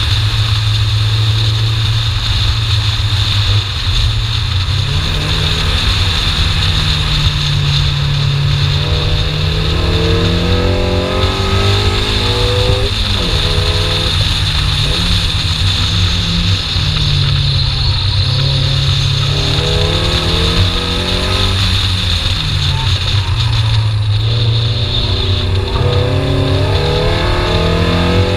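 BMW E30 318iS's four-cylinder engine pulling hard and revving up and down, its pitch climbing several times and dropping sharply about 13 seconds in, over a steady low rumble of wind and road noise.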